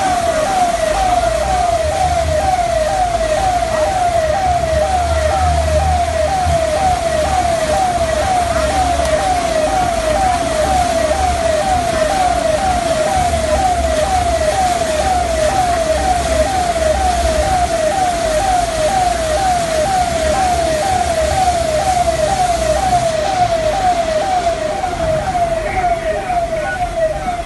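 Electronic siren cycling in quick, even falling sweeps, about two a second, over a continuous rushing noise.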